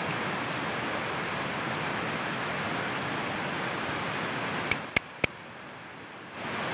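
Steady outdoor rushing noise, with three sharp clicks close together near the end, after which the noise briefly drops away.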